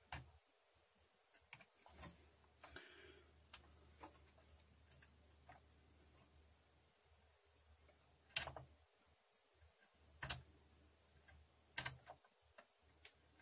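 Sparse light clicks and ticks from a blade working the plastic key tabs of an LGA 775 CPU socket, trimmed flush so a socket-771 Xeon will fit, with three sharper clicks in the second half against a faint hum.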